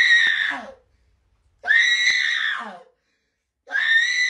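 A person screaming in anger three times, each scream about a second long, high and held, then dropping in pitch at the end.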